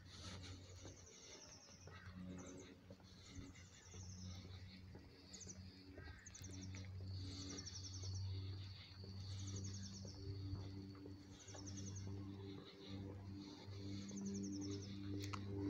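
Small birds chirping: short, rapid trilled chirps repeated about every second, over a steady low hum.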